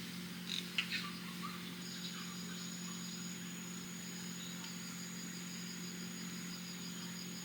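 Insects trilling steadily in a high, even, finely pulsed chorus over a low steady hum, with a few short clicks in the first second.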